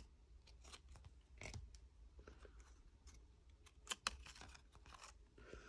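Faint clicks and soft rustles of a stack of basketball trading cards being slid one by one through the hands, with a sharper click about four seconds in.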